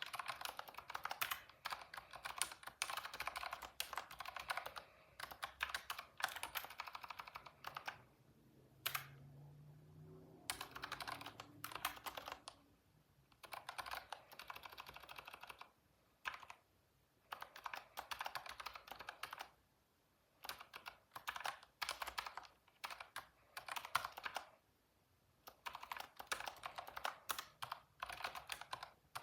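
Computer keyboard typing in quick bursts of keystrokes separated by short pauses.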